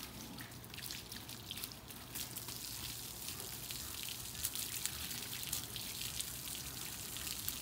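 Water running from a garden hose onto a dog's wet coat, splashing and draining onto artificial turf as the dog is rinsed during a bath: a steady hiss with scattered splashes.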